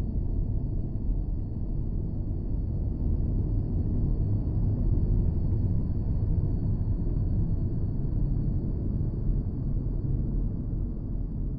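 Designed sci-fi alien-landscape ambience: a steady, low rumbling drone with a faint thin high whine above it, unchanging throughout.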